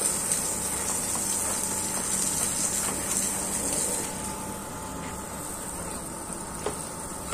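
Garden hose spraying a jet of water onto grass and soil, a steady hiss that eases a little about halfway through.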